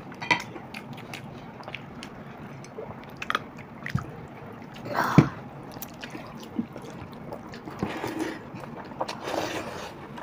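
Close-up eating sounds of water-soaked rice (pakhala) eaten by hand: wet squishing as fingers mix and scoop the rice in its water, with chewing and scattered small clicks. A louder, short wet sound comes about five seconds in.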